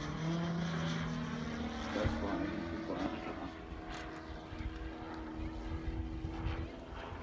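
Propeller-driven engine of a 2.7 m Pilot-RC 330 SV aerobatic model plane droning in flight overhead, its note shifting to a higher pitch about two seconds in.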